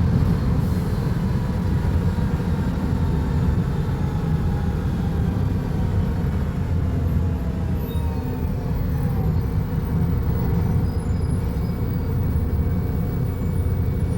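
Volvo B290RLE city bus's diesel engine running with a steady low rumble, a faint falling whine coming through about eight seconds in.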